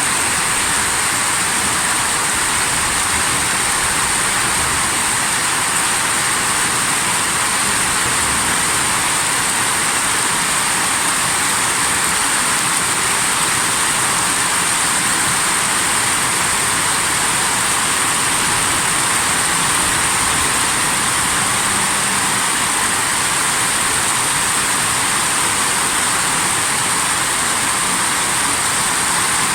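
Torrential water rushing, a loud, steady, unbroken hiss with no let-up.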